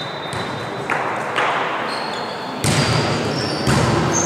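Volleyball being served and played in an echoing sports hall: four sharp hits about a second apart, with brief high sneaker squeaks on the court floor between them.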